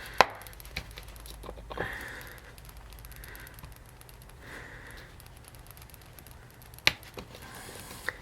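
Small hand tools and loose screws being handled on a workbench: a sharp click just after the start, a couple of faint knocks, and another sharp click about seven seconds in, with soft rustling between.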